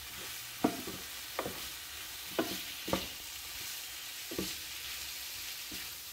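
Shrimp, capsicum, onion and tomato sizzling in sauce in a frying pan as a spatula stirs and tosses them. A steady hiss runs throughout, with a soft knock of the spatula against the pan about once a second.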